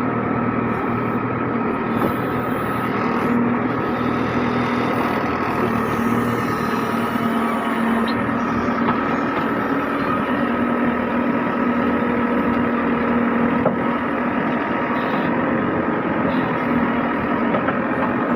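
JCB 3DX backhoe loader's diesel engine running steadily, with an even drone and a constant whine.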